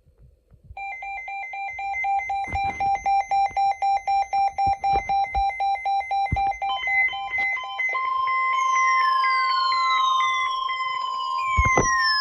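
Emergency weather alert tones: a rapid beeping at about five beeps a second for several seconds, then a steady alarm tone, the NOAA Weather Radio warning alarm. Two long falling whistle sweeps and a short knock come over the steady tone.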